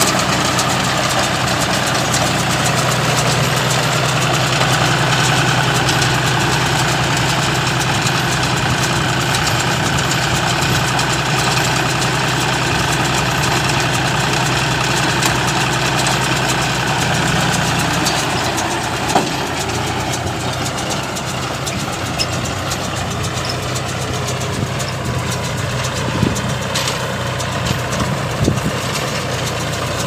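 John Deere 5045 D tractor's three-cylinder diesel engine running steadily under load while it drives a working round baler. It gets a little quieter after about 18 seconds as the tractor moves off, and a few short sharp knocks come through in the second half.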